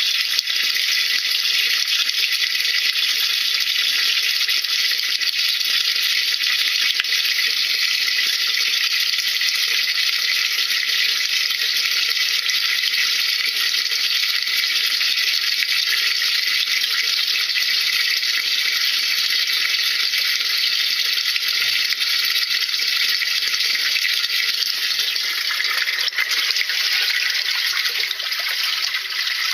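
Steady rush of running water in a washing machine drum, splashing without a break.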